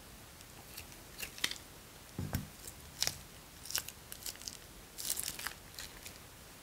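Small plastic zip-lock bag crinkling and crackling in the hands as it is torn open and squeezed out, in scattered sharp crackles with a denser run about five seconds in. A soft low thump a little over two seconds in.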